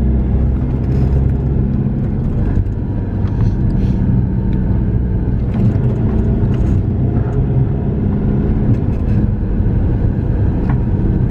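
Minibus engine running steadily with road noise while driving.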